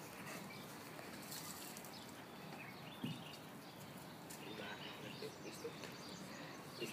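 Faint outdoor ambience with small birds chirping now and then, and a single short thump about three seconds in.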